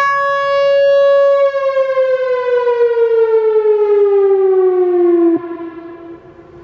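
Whelen WPS-4004 electronic outdoor warning siren sounding a steady tone, which then slides down in pitch over about four seconds as the siren winds down. Near the end the sound drops sharply in loudness, leaving a fainter low tone.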